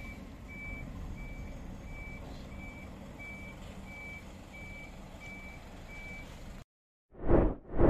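Flatbed tow truck backing up: its reversing alarm beeping steadily, just under twice a second, over the low running of its engine. Near the end the sound cuts off and two short, loud swells of noise follow.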